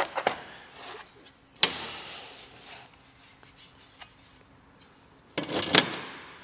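Handling noise as a glass panel is slid out of its cardboard packaging: a few light clicks, a sharp knock about a second and a half in followed by a rubbing slide, then a louder scraping rub of glass against cardboard near the end.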